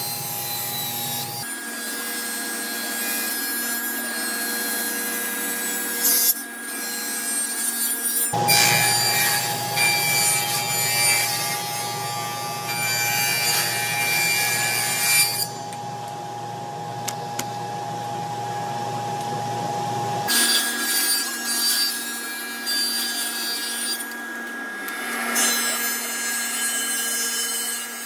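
Table saw cutting spalted maple boards: the blade's steady whine under a rough cutting noise as the wood is fed through. Several separate cuts follow one another, the sound changing abruptly between them, about 1.5, 8 and 20 seconds in.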